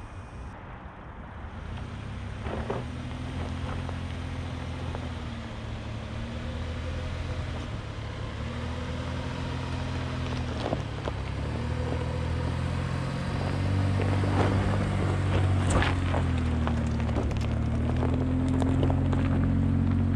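A 2022 Chevy Colorado ZR2's 3.6-litre V6 engine, its revs rising and falling again and again and growing louder toward the end, with a few sharp knocks.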